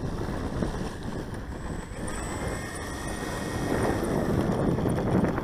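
Gusty wind buffeting the microphone, a steady low rumble, with a faint steady high whine in the middle.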